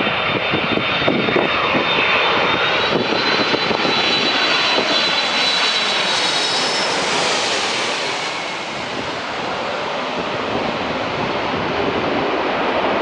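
Boeing 777-300ER's GE90 turbofan engines passing low overhead on landing approach: a high whine over the jet noise in the first half, the noise peaking about seven seconds in, then falling away to a lower rumble as the aircraft moves off.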